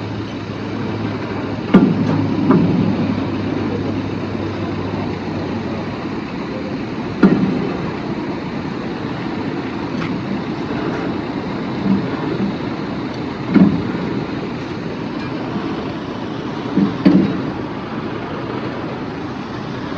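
A vehicle engine running steadily, with a few sharp metallic clanks spread through, from work on the truck's wheels during a tyre change.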